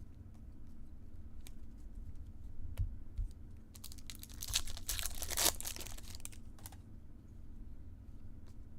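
Trading cards being handled with scattered light clicks, and a foil card-pack wrapper crinkling and tearing as it is opened, densest and loudest about four to six seconds in.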